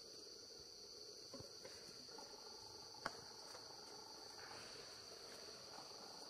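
Faint, steady high-pitched drone of insects in chorus, with one sharp click about three seconds in.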